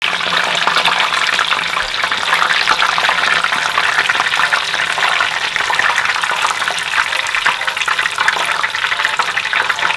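Breaded whole shrimp deep-frying in hot oil: a loud, steady, dense crackling sizzle of bursting oil bubbles.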